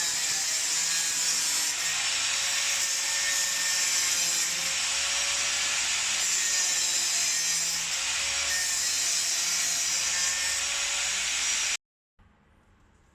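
A power tool running steadily against metal, taking a millimetre or two off the pedal-box metalwork around a pedal hole. It ends abruptly near the end.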